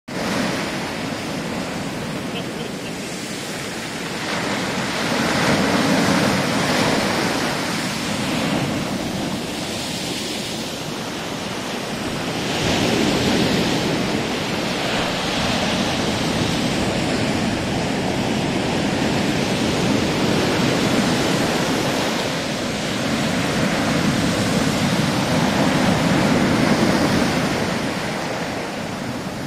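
Rough sea surf breaking on a pebble-and-sand beach: a continuous rushing wash that swells and eases every few seconds as each wave crashes and runs up the shore.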